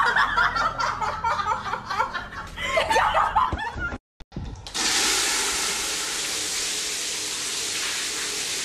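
Voices and laughter for about four seconds, then a brief silence at a cut, then a steady hiss of water spraying hard from a burst pipe at a wall urinal.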